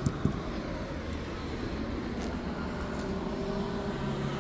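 Street traffic noise: a steady rumble of passing cars, with a faint low engine hum coming in about three seconds in.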